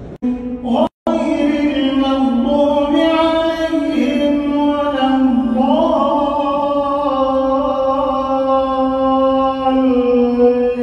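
An imam chanting Quran recitation in prayer: one man's voice in long, held melodic phrases that glide from note to note. The audio drops out for a moment about a second in.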